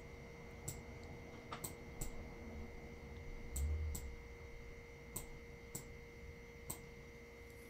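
Faint, irregular clicks of a stylus tapping on a tablet screen while handwriting, about eight in all, with a low bump near the middle. A faint steady electrical hum runs underneath.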